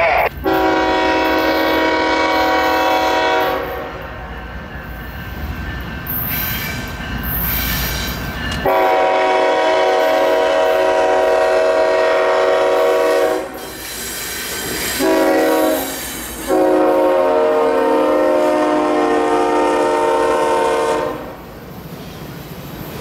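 Union Pacific freight locomotive's multi-chime air horn sounding the grade-crossing signal as the train approaches: two long blasts, a short one and a final long blast. The rolling of the passing autorack cars follows near the end.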